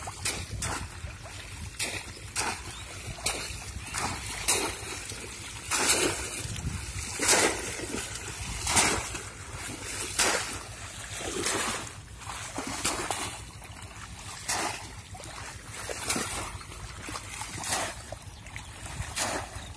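Shallow water splashing again and again as bamboo polo fish traps are plunged down into it and legs wade through, in irregular strokes about once a second.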